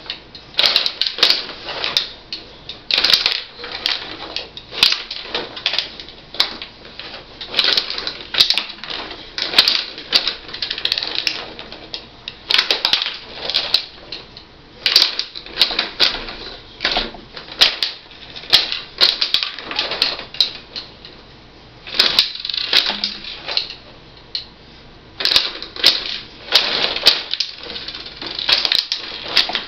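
Rod hockey table in play: rapid, irregular clacking as the puck strikes the players, sticks, boards and v-goalies, with the control rods rattling as they are pushed and spun. The clatter comes in bursts with short pauses, and a lull of a couple of seconds about three quarters of the way through.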